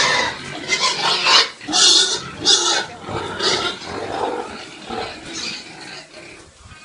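Pigs squealing: about five loud, harsh squeals in the first four seconds, then fainter ones dying down toward the end.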